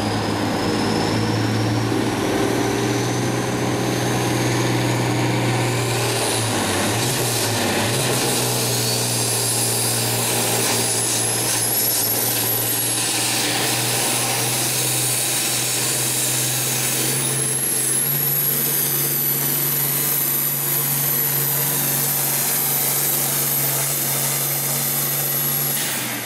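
International Harvester 1466 tractor's turbocharged diesel engine running flat out under load while pulling a sled. A high turbo whistle rises over the first several seconds and holds steady later on, and the engine note wavers briefly about seven seconds in.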